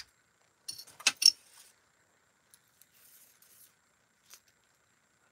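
Small metal jewelry pieces being handled, clinking and jangling against one another: a quick cluster of sharp clinks about a second in, then faint rustling and a single light click near the end.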